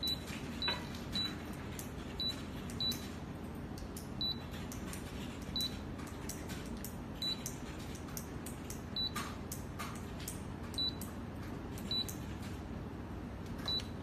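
AD402 ultrasonic aroma humidifier's control button pressed over and over, each press answered by a short high beep with a faint click, about a dozen times at uneven intervals, over steady low background noise.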